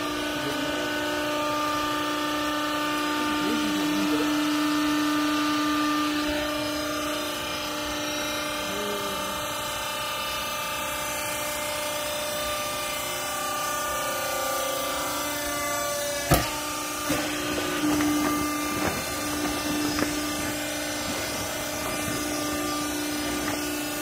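Small rag baler's hydraulic power pack, electric motor and pump, running with a steady hum while the press works. A sharp click a little over two-thirds through is the loudest sound, followed by a few lighter knocks.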